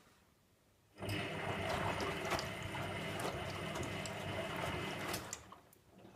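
Servis 308S washing machine turning its drum during the wash: the motor starts about a second in with a steady hum and whine over sloshing water and mechanical rattle, runs for about four seconds, then stops.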